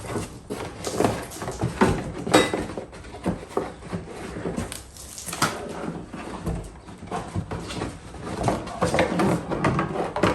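Packaging being handled during unboxing: irregular rustling and scraping with scattered knocks and clunks as parts are lifted out and set down.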